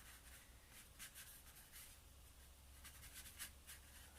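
Faint, scratchy strokes of a paintbrush dry-brushing acrylic paint across canvas, several short strokes, over a low steady hum.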